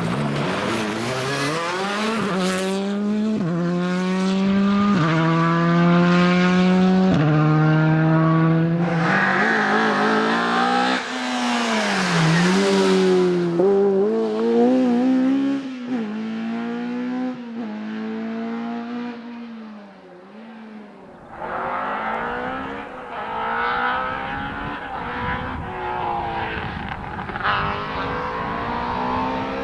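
Rally car engine accelerating hard, its note climbing and dropping back at each of several upshifts, then slowing and swooping up and down through braking and acceleration. The engine sound falls away about two thirds in, then a car is heard accelerating again through gear changes.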